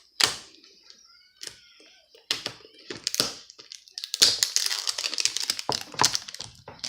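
Plastic candy packet crinkling and crackling as it is handled and torn open: a few sharp cracks at first, then a dense run of crackling from about four seconds in.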